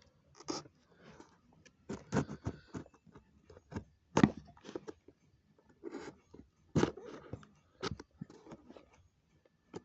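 Knife slitting packing tape on a cardboard box: irregular scrapes, rips and knocks of blade, tape and cardboard, the loudest about four seconds in.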